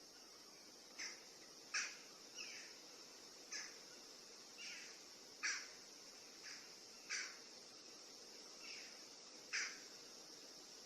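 Short sharp bird calls repeated roughly once a second, some louder and some fainter, over a steady high-pitched insect drone.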